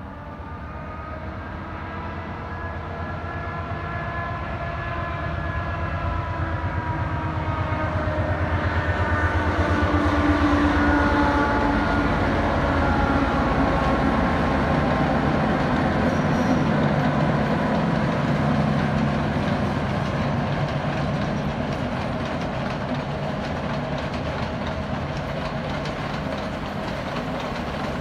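A diesel-hauled passenger train passes on the line below. Its engine note grows louder to a peak about ten seconds in, then fades slowly as the carriages run on along the rails.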